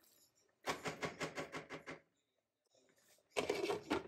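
Wooden spoon stirring rice in a pot in a quick run of scraping strokes, about seven a second, for just over a second. A second short burst of clatter comes near the end as the glass lid is handled on the pot.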